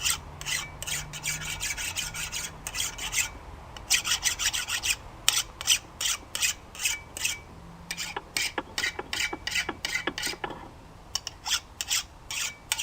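Steel file scraped in repeated quick strokes across the freshly hardened steel face of an anvil, with a brief pause about ten seconds in: a file test of the anvil face's hardness after quenching.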